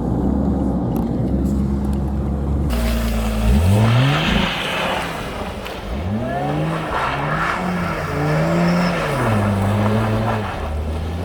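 Sports car engine, likely the Lotus Evora's V6, running steadily at first and then revved hard in quick rising sweeps, held high and wavering for a few seconds before dropping back to a steady lower speed.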